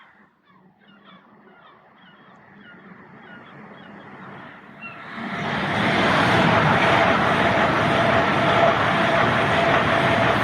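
A train passing the footbridge: a loud, steady rushing of wheels and air with a continuous whine, building up about halfway in and holding. Before it, a run of short high chirps repeats about three times a second.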